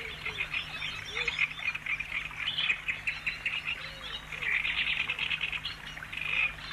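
Chorus of small songbirds chirping and trilling, with a lower, softer call repeating every second or so beneath it.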